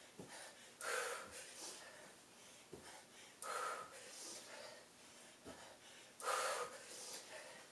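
A woman breathing hard from exertion, with three loud exhales about two to three seconds apart. Each exhale comes just after a soft thud as she lands a jump thrust on the carpeted floor.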